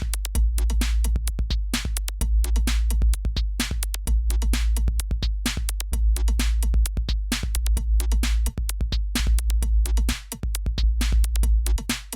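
Electronic outro music with a fast drum-machine beat over a heavy, steady bass.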